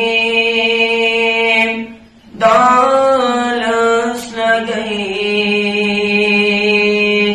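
A solo voice singing a Kashmiri naat, unaccompanied, in long held and slowly bending notes. There is a short breath break about two seconds in.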